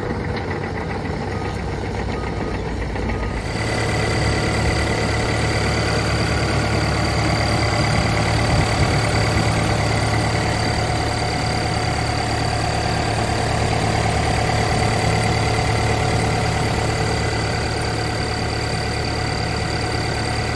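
Takeuchi TB290 mini excavator's Yanmar 3.3-litre four-cylinder diesel running. It is heard from a distance as the machine tracks for the first three seconds or so, then up close at the open engine bay, running steadily with a steady high whine over it.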